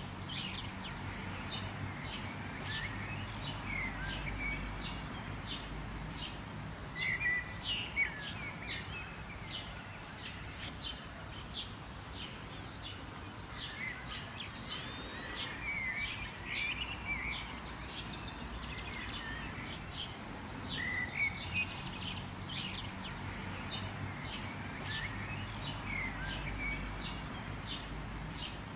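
Several birds singing and chirping, with many short, sharp notes coming in clusters over a steady low background rumble.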